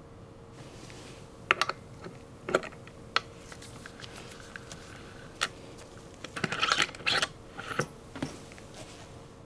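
Sharp clicks and small metallic knocks of a mountain bike front wheel being taken out of its fork: the thru-axle being worked loose, then a quick run of rattling clacks about six to seven seconds in as the wheel and disc rotor come free.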